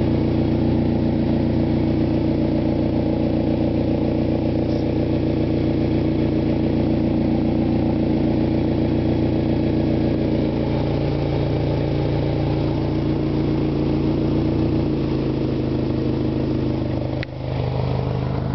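1992 Eagle Talon TSi driving, a steady mix of engine hum and road noise. The engine note drops about fifteen seconds in, and a brief sharp sound comes near the end.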